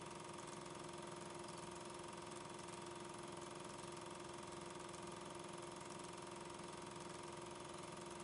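Steady machine hum with hiss and a couple of held tones, unchanging throughout.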